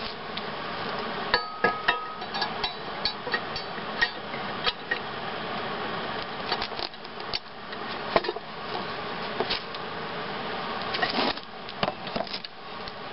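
Steel pipe lever of a homemade scrap-steel walnut cracker being worked on its pivot: repeated metal clanks, knocks and scraping, a few of them ringing briefly about a second or two in. The jaw is bottoming out, and the builder finds he left too little clearance at the bottom.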